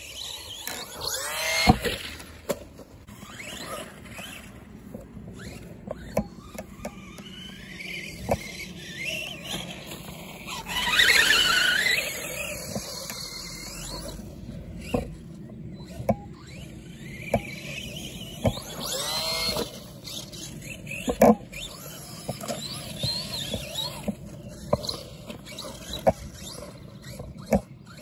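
Arrma Big Rock RC monster truck driving on grass: its electric motor whines up and down in pitch in three bursts of throttle, the loudest a little over ten seconds in. Sharp knocks are scattered throughout as the truck bounces over the ground.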